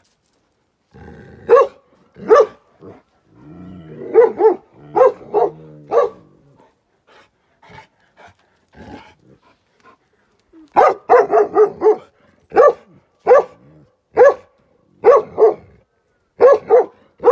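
Large black-and-tan Gaddi dog barking: two barks, then a cluster of barks, a pause, a quick run of barks past the middle, and then single barks spaced about every half second toward the end.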